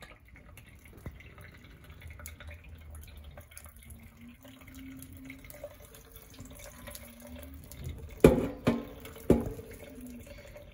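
Kitchen tap running a thin stream of water onto a whole fish in a stainless steel sink, a steady trickle and splash as the fish is rinsed. Near the end come two sharp knocks about a second apart, the loudest sounds, each with a brief ring.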